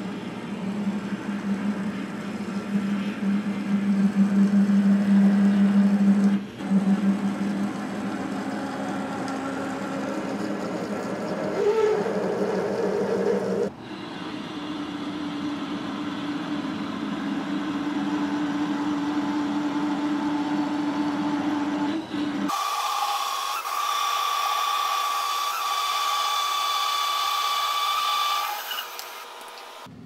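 Metal lathe running while a twist drill in the tailstock chuck, then a larger cutter, feeds into a ductile iron cap: a steady machine hum with cutting noise. The sound changes abruptly twice, the second time to a higher, thinner steady whine that fades near the end.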